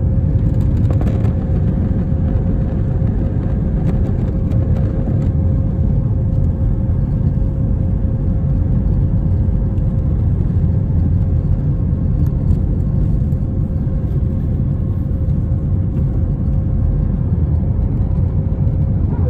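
Airbus A321-232's IAE V2500 turbofans at takeoff thrust, heard from the cabin over the wing: a loud, steady roar and rumble with a steady whine above it, through the takeoff run and lift-off.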